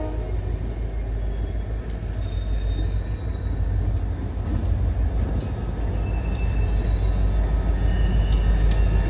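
Freight train of loaded stone hopper cars rolling past: a steady low rumble that grows louder toward the end, with scattered sharp clicks and a few faint high squeals.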